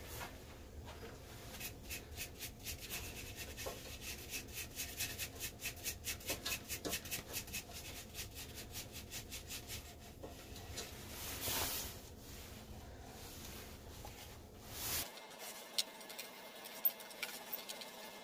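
Paper towel rubbing against a turned cherry-wood goblet as it is wiped down on the lathe, a quick, even series of rubbing strokes, about three a second, over a low hum that stops about fifteen seconds in.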